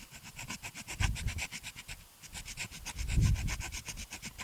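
Rapid, evenly paced rasping strokes of a hand tool working on the handlebar setup, about eight a second, with a brief pause about two seconds in. Low thumps of handling run underneath.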